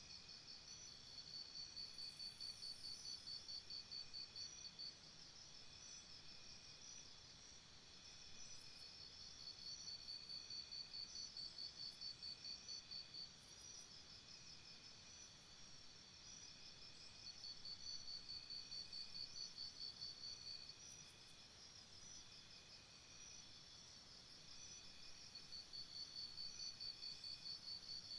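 Jungle morning ambience: a chorus of insects giving a steady high buzz, over which one louder, rapidly pulsing insect trill comes and goes in four bouts of a few seconds each.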